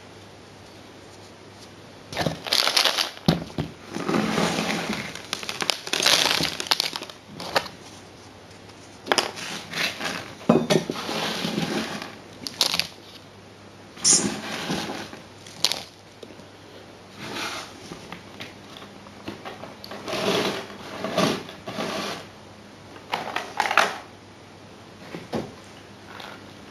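Gravel and small stones crunching and scraping as they are moved around by hand, in irregular bursts starting about two seconds in.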